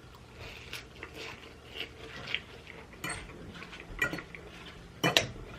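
Eating utensil clinking against a dish a few times, in scattered short clicks, the sharpest near the end.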